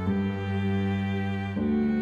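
Background music of slow, sustained chords, with a chord change about one and a half seconds in.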